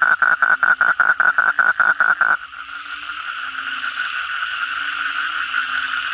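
Asian common toad calling with its throat sac puffed out: a rapid, even rattling trill of about eight pulses a second that stops abruptly about two and a half seconds in. A steady background chorus of other frogs carries on after it.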